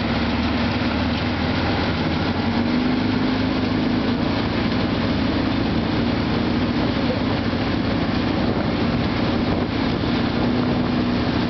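Tractor engine running steadily under load, pulling a New Holland FP230 forage harvester whose cutterhead and blower are chopping haylage and blowing it into the wagon. The result is a continuous mechanical drone with a steady hum and no letup.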